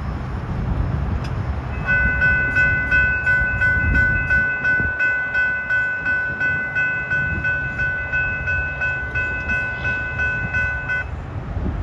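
Railroad crossing bell ringing quickly and evenly, about three strikes a second. It starts about two seconds in, over the fading low rumble of the train's last cars rolling on the rails, and stops shortly before the end.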